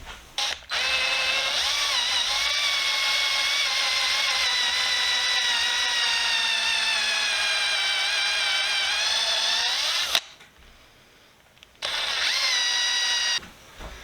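Electric drill running steadily, its whine wavering slightly in pitch under load as it bores the hole for a dowel. It stops after about nine seconds, then runs again briefly.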